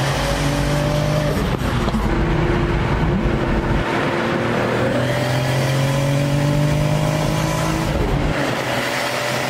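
Turbocharged BMW E46 engine pulling hard under acceleration, heard from inside the cabin: the engine note rises steadily in pitch through three pulls, dropping back at each gear change, about a second and a half in, just under four seconds in, and near the end.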